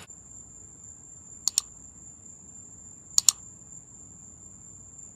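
Computer mouse-click sound effects from a subscribe-button animation: two quick double clicks about a second and a half apart, over a faint steady high-pitched tone.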